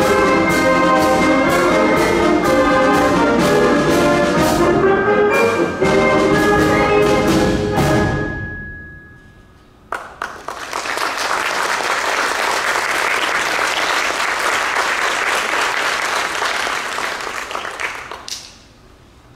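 Concert band of brass, woodwinds and percussion playing the final bars of a march with a steady beat; the last chord rings and dies away about eight seconds in. After a short quiet, the audience applauds for about eight seconds.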